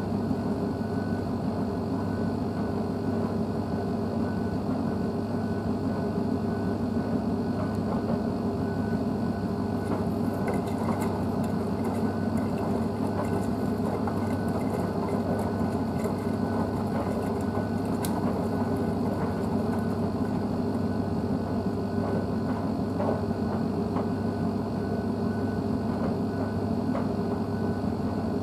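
Blomberg WNF9448 front-loading washing machine running its wash, the drum turning the load with a steady motor hum and the churn of wet laundry. Faint light ticking comes through for several seconds in the middle.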